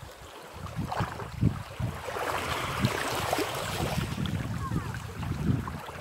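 Small waves of a calm sea lapping and splashing against pebbles and stones at the water's edge, in an uneven run of little splashes that grows louder about a second in, with some wind on the microphone.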